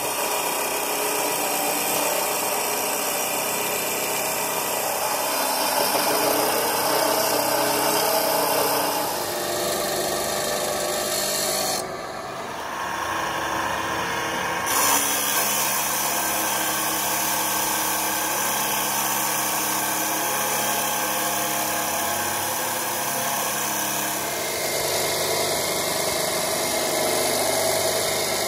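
A power tool running steadily on metal during a truck rear-axle repair: a continuous motor hum with a cutting or grinding noise over it. The sound changes abruptly a few times, dropping briefly about twelve seconds in.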